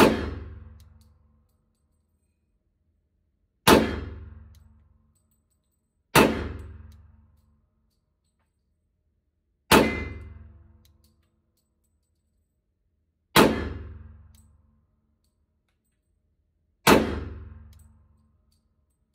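Glock 23 Gen 4 .40 S&W pistol fired six single shots a few seconds apart. Each is a sharp crack that rings and fades over about a second in the enclosed indoor range. The pistol cycles each round from its 22-round factory extended magazine without a jam.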